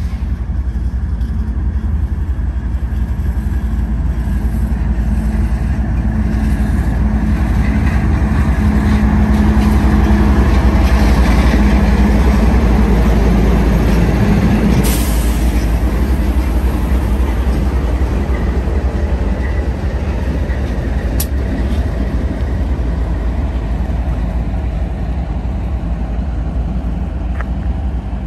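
Two BNSF diesel locomotives running light pass close by, their engines' deep rumble swelling to its loudest about halfway through and then easing as they move away. A short hiss of air sounds just after the loudest point.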